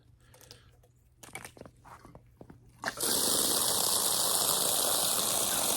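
A few light knocks, then about three seconds in an outdoor faucet is turned on and water gushes into a bucket in a steady rush.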